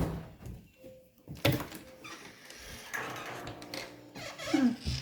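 A door being handled and opened indoors, with several knocks and a short creak near the end.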